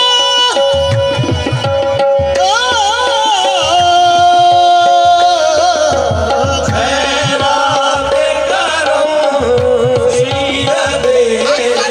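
Live qawwali music: a singer's voice sliding and wavering in pitch over the held chords of two harmoniums, with hand-drum strokes keeping the beat.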